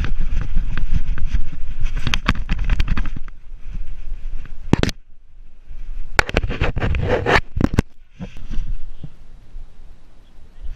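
Handling noise from a GoPro camera hung at a running dog's side: irregular knocks, bumps and rubbing of the housing against the dog's fur and nearby objects. The noise comes in bouts with quieter stretches between them.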